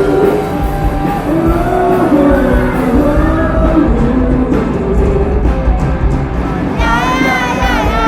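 A rock band playing live with a singer, over heavy bass. About seven seconds in, a strong, wavering high vocal line comes in.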